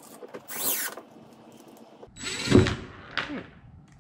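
Cordless drill driving screws into a plastic kayak hull to fasten a rod holder, running in two short bursts. The second burst, about two seconds in, is louder and longer and winds down with a falling pitch.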